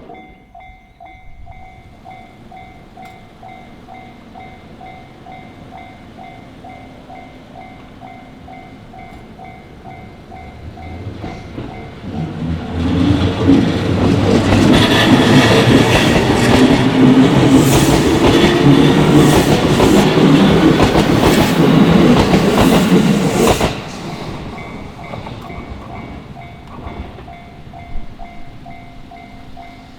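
Japanese railway level-crossing warning bell ringing in a steady repeating clang. About twelve seconds in, a JR electric commuter train passes loudly over the crossing for about ten seconds, its wheels clattering on the rails, then stops short. The bell goes on ringing after the train has passed.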